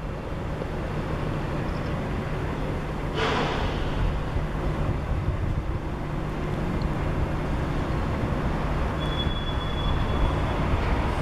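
Container wagons of a freight train rolling past: a steady rumble of steel wheels on the rails. There is a short sharp rushing noise about three seconds in, and a faint high squeal near the end.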